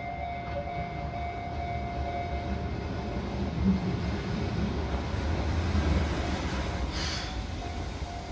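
Keihan 600 series two-car train (cars 611-612) pulling into the station: a low rumble of wheels and running gear grows louder as it approaches, peaks about six seconds in, and eases. A short hiss comes about seven seconds in.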